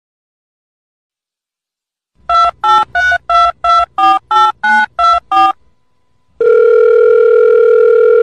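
Telephone keypad dialing: after about two seconds of silence, about ten quick beeps, each a pair of tones, one per key press. About a second later a steady telephone line tone follows and holds for about two seconds.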